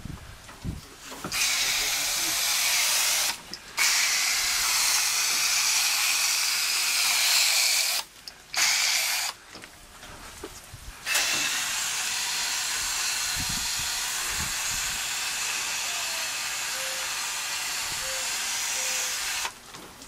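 Hand-pump pressure sprayer hissing as it sprays coil cleaner onto a heat pump's condenser coil, in four spells: two of a few seconds, a short one, and a long one of about eight seconds.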